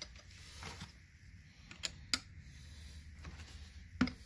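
A few light clicks of screwdrivers against a Hydro-Gear ZT-2800 transmission housing as they are wedged into its seam. Near the end a mallet starts knocking a screwdriver in to split the glued housing halves.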